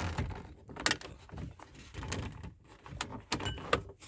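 Hands working plastic wiring connectors and dash trim loose: a scatter of short plastic clicks, knocks and rattles.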